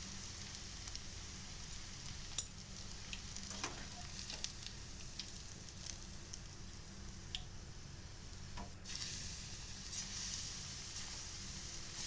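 Eggplant pieces sizzling in hot deep-frying oil, a steady faint hiss with a few light clicks. About nine seconds in the sizzle grows louder as a fresh batch of raw pieces goes into the oil.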